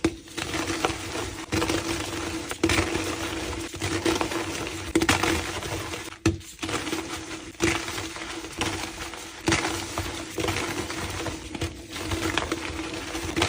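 Blocks of reformed gym chalk being crushed and crumbled: crisp crackling and crunching with sharp little snaps, in short stretches cut off abruptly every second or two, over a faint steady hum.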